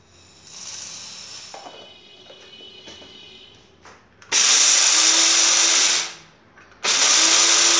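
Dry roasted moong dal poured rattling into the stainless-steel cup of an electric blade spice grinder, a few clicks as the lid goes on, then the grinder's motor run in two short pulses of about a second and a half each, its hum rising slightly in pitch as the blades grind the dal to powder. The grinder pulses are the loudest part.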